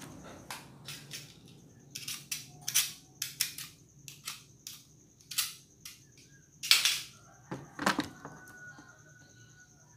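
Irregular sharp clicks and snaps of small hand tools working on a washing machine control board while its swollen electrolytic capacitor is being replaced, the loudest snaps about seven and eight seconds in. A faint steady high whine runs underneath.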